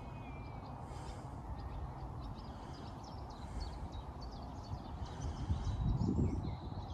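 Wind buffeting the microphone outdoors, with a stronger gust about six seconds in, and birds chirping and calling in the background.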